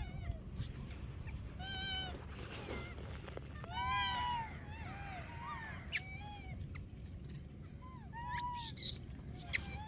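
Many short calls from animals, each rising and falling in pitch, repeated throughout, with a loud, shrill squeal that falls in pitch about eight and a half seconds in.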